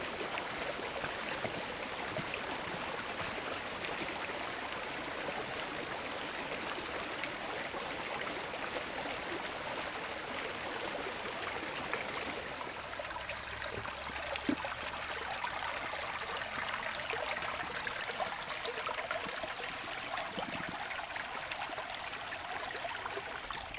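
Running water of a stream: a steady, even rush with no clear breaks.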